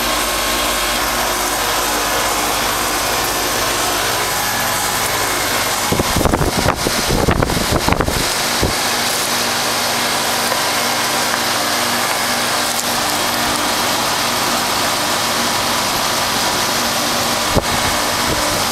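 A 1996 Carrier 5-ton straight-cool condensing unit running steadily in cooling mode: the compressor hums and the condenser fan makes a constant rushing noise. A brief burst of rumbling comes about six seconds in, and there is a single click near the end.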